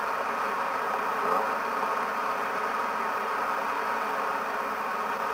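Steady rushing of a river in flood.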